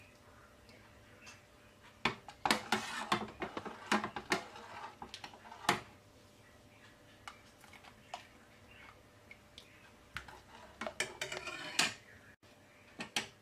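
Metal ladle stirring soup in a stainless steel pot, clinking and scraping against the pot's sides in two spells of clatter, one starting about two seconds in and another about ten seconds in.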